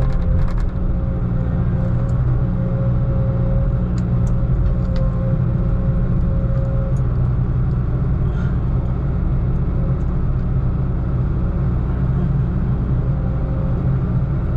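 Heavy log truck's diesel engine running steadily with a low rumble, and a thin steady whine that fades out about halfway through.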